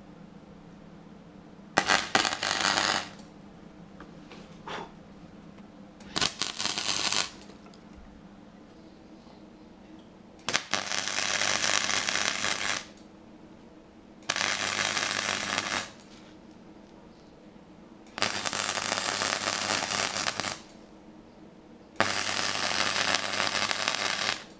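Electric arc welding on a steel engine oil pickup tube: six bursts of crackling arc, each one to two and a half seconds long, starting and stopping sharply, with a steady low hum in the pauses between welds.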